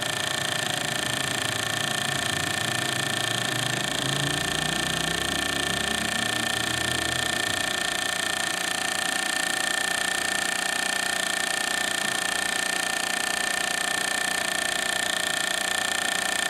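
1929 Meccano steam engine running and driving a Mamod WS1 model workshop's line shafting through belts: a steady mechanical whirr with a high steady tone. A lower rhythmic rumble runs through the first half and fades out about halfway.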